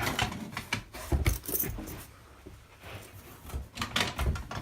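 Keys jangling amid clicks and rattles of hard objects being handled, with a dull thump about a second in and another near the end.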